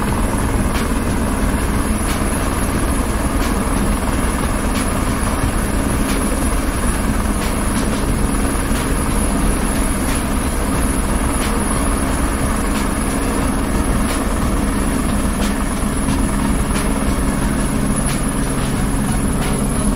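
Helicopter hovering low overhead: a steady, loud rotor beat and engine rumble with a thin high turbine whine over it.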